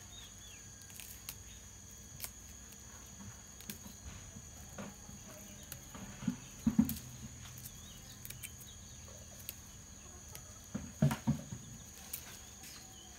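Small clicks and rustles of leaves being snapped off a bonsai by hand, with two short clusters of louder low knocks, one around the middle and one near the end. A steady high insect trill runs underneath.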